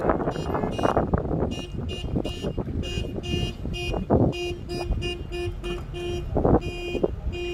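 Car horns sounding in quick repeated toots, about three a second, from at least two horns of different pitch, starting about a second and a half in, with a few short rushes of noise in between.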